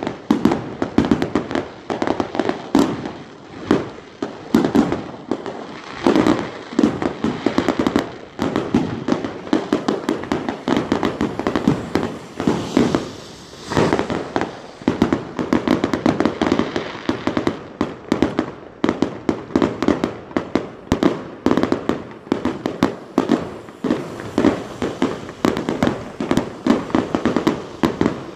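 Aerial fireworks going off in an unbroken barrage, with several sharp bangs and crackles a second.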